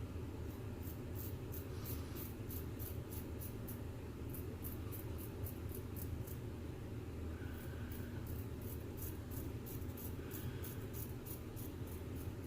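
Straight razor scraping through lathered stubble in short, quick strokes, about four a second, with a short pause past the middle, over a steady low hum.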